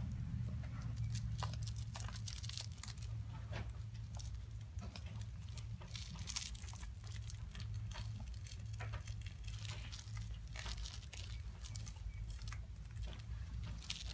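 A cat playing with a soft toy mouse, clawing and biting it: irregular rustling, crinkling and light scratching, one small burst after another. A steady low hum runs underneath.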